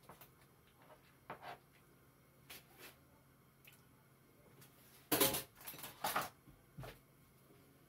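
Kitchenware clinking and knocking as a spoonful of butter goes into a pot of milk: a few light taps, then a louder clatter of spoon and cookware about five seconds in.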